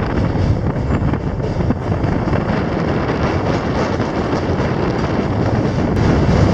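Steady rumble of a train running across a steel truss bridge, heard from the window of the coach, with wind noise on the microphone.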